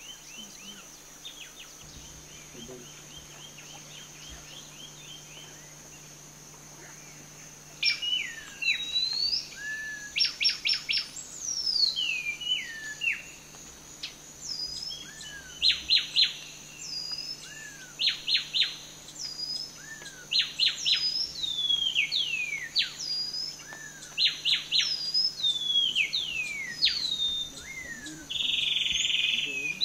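Amazon rainforest birds in the dawn chorus: loud falling whistles and quick runs of short sharp notes, repeated again and again, starting about a quarter of the way in. Underneath, a steady high-pitched drone, with faint rapid trilling before the birds start.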